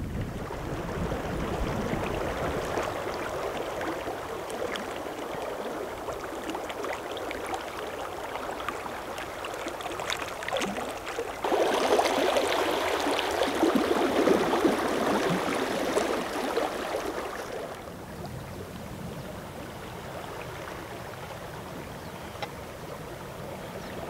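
Rushing, splashing water of a shallow sand-bed creek running in standing waves. It jumps louder about halfway through, then eases to a softer steady flow over the last several seconds.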